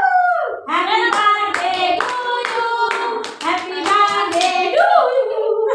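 A small group of women and a girl singing a birthday song together, clapping along in a steady beat of about two to three claps a second.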